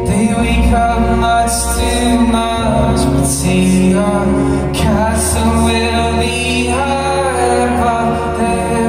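A rock band playing live, with a singer's voice over sustained guitar and keyboard-like chords, heard from within the audience in the venue.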